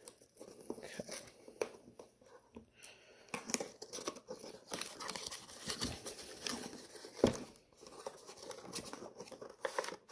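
Cardboard earbud box being opened by hand: irregular tearing, crinkling and scraping of the paperboard sleeve and flaps, with scattered small clicks and rustles.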